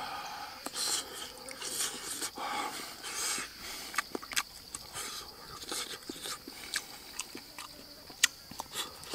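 A person eating a soft omelette with wet open-mouthed chewing, lip smacks and sharp clicks, with short breaths through the nose between bites.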